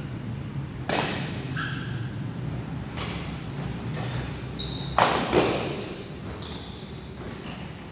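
Badminton racket strings hitting a shuttlecock in a rally: sharp hits about two seconds apart, the loudest about five seconds in and followed quickly by another. Short high squeaks in between, typical of court shoes on the floor.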